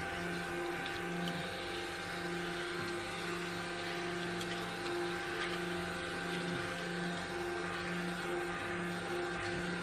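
Handheld stick blender running steadily with a constant motor hum, its head churning cold-process goat's-milk soap batter to bring the oils and lye solution to emulsion. It switches off abruptly at the end.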